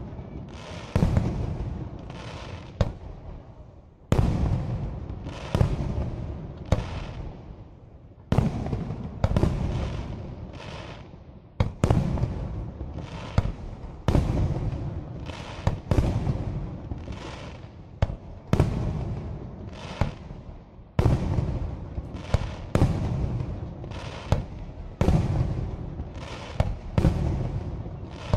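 Aerial firework shells bursting one after another, a sharp bang about every second, each followed by a low rumble that fades away.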